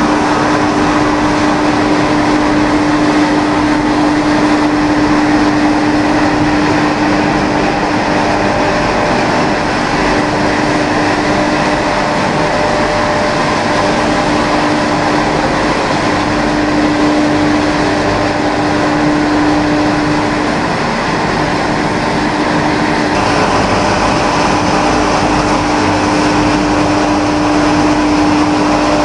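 Machinery of a stalk and straw pellet production line running: a steady mechanical drone with a strong, even hum. The hum fades out for a couple of seconds about three-quarters of the way through, then returns.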